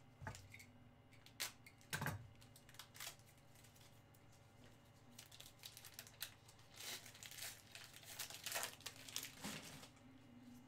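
Plastic wrapper of a 2019 Donruss baseball card pack crinkling and tearing as it is opened, faint, with scattered sharp crackles and two busier stretches about five and eight seconds in.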